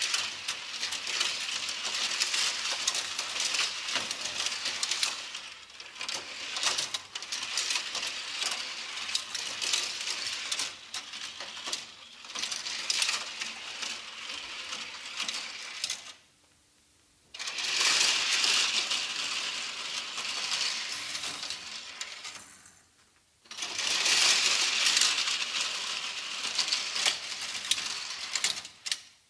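Hot Wheels die-cast toy cars rolling down a plastic spiral ramp, a continuous high clatter and rattle of metal cars on hard plastic track that stops twice for about a second.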